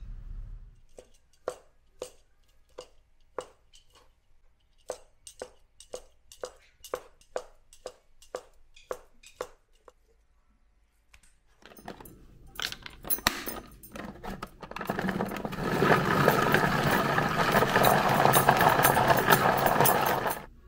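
A kitchen knife chopping on a wooden cutting board, about two cuts a second, then a few louder knocks and clatter. After that a countertop food chopper runs loud and steady for about five seconds, mincing onion, and cuts off suddenly near the end.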